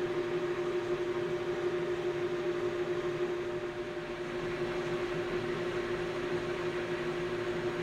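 Metal lathe running steadily with a constant whine while a 3.3 mm twist drill in the tailstock chuck bores through the spinning steel bar to make it into a tube.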